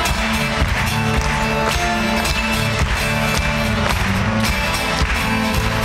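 Acoustic guitar played live on stage, strummed in a steady rhythm, with no singing.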